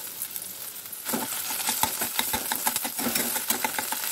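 Ripe pumpkin pulp sizzling as it fries in desi ghee in a kadhai. From about a second in, a spoon scrapes and clicks against the pan as it is stirred. The sizzle is the pumpkin's water frying off.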